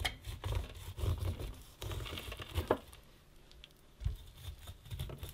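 Knife cutting kernels off a cob of steamed corn on a wooden cutting board: an irregular series of soft thuds with light scraping strokes.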